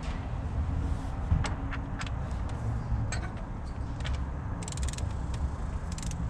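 Spark plugs being tightened with a ratchet: scattered sharp metal clicks and two quick runs of ratchet clicks, one a little over halfway through and one near the end, over a steady low rumble.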